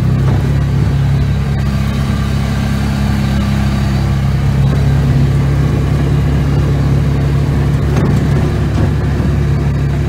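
Engine of a Polaris side-by-side utility vehicle running steadily as it drives along a rough pasture track, heard from the driver's seat.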